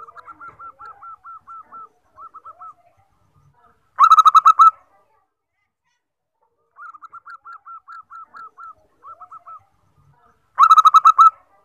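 Zebra dove (perkutut) singing two song phrases. Each is a run of soft, quick cooing notes followed by a short, much louder burst of notes.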